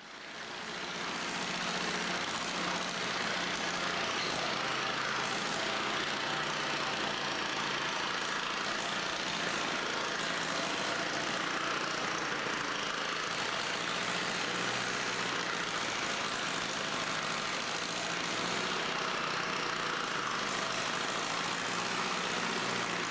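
Diesel-style engine of a yellow aircraft towing tractor running steadily at idle.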